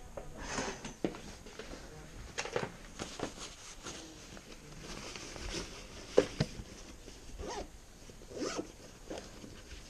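Zippers on ski clothing and a bag being pulled several times in short strokes, with rustling of handled fabric between the zips.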